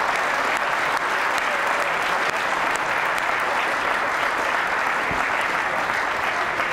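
A large seated audience applauding steadily, the clapping that greets the fall of the hammer when a property is sold at auction.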